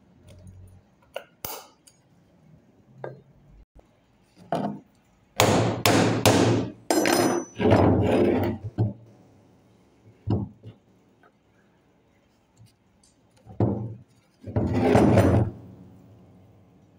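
Metal parts of a starter motor being handled on a workbench: irregular knocks, clinks and short scrapes. The loudest ones come in a quick cluster about five seconds in and again near the end.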